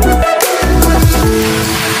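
Background electronic music with a heavy bass line and sustained synth tones.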